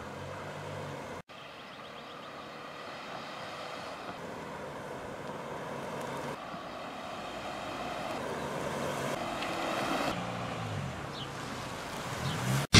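A small car driving up a street toward the microphone, its engine and tyre noise slowly growing louder, with a brief break just over a second in.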